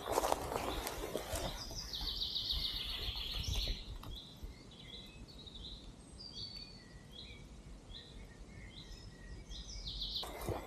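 A small bird singing: a rapid trill of about two seconds, then a string of short high chirps at about two a second. Footsteps on the forest floor are heard briefly at the start and again near the end.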